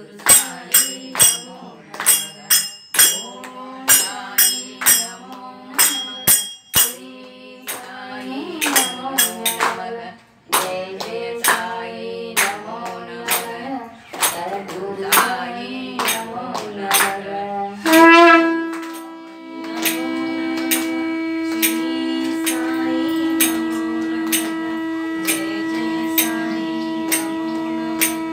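Women singing a devotional aarti song, kept in time by an evenly struck jingling percussion instrument. About eighteen seconds in, a conch shell is blown in one long, steady held note that carries to the end, with the jingling strokes still sounding under it.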